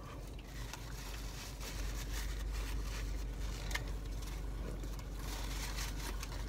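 Quiet chewing with a few soft clicks and scrapes, over the steady low hum of a car cabin.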